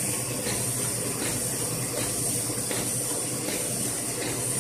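Autoprint sheet-fed offset printing press running in production, a steady mechanical clatter and hiss with a regular knock about every three quarters of a second, keeping pace with the sheets it prints.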